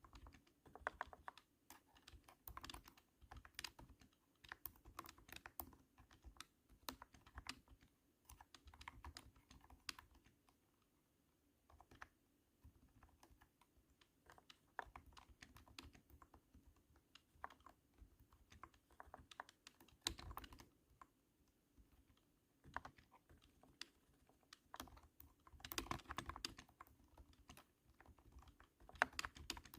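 Typing on a cat-shaped keyboard: a run of thunky key presses in uneven flurries, with a brief pause about eleven seconds in.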